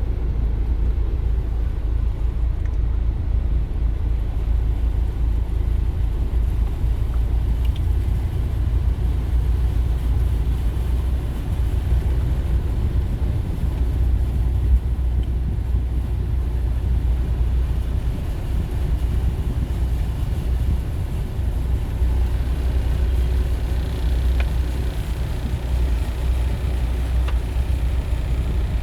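Steady low rumble of road vehicles, with no distinct events standing out.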